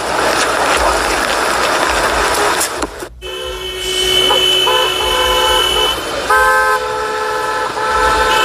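Car horns honking in long, overlapping blasts, several horns at different pitches sounding on and off, starting about three seconds in after a stretch of steady noisy rush.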